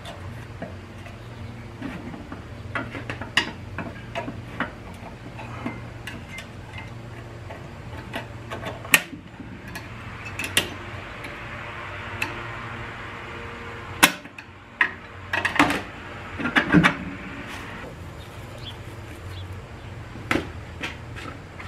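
Small metal clicks and taps of a pick and parts against the 47RE transmission's aluminium case while a snap ring is worked into place, a few sharper knocks among them. A steady low hum runs underneath, and a soft rushing noise swells and fades in the middle.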